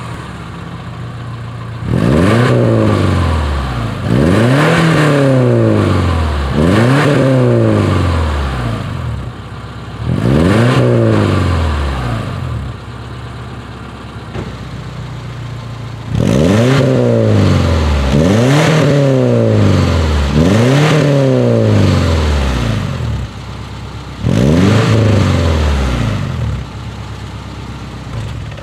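Modified Subaru Legacy/Liberty third-generation EJ25 2.5-litre flat-four idling with the boxer "Subie rumble" and free-revved eight times, each rev climbing quickly and falling back to idle.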